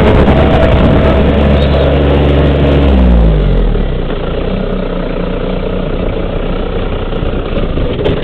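John Deere garden tractor engine running under the rider, then dropping in pitch and level about three seconds in as it is throttled back, and running on steadily at lower revs.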